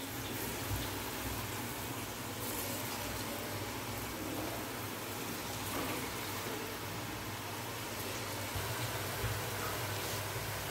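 Hot oil in a kadai sizzling and bubbling steadily as murukku (jantikalu) dough is pressed into it and deep-fries.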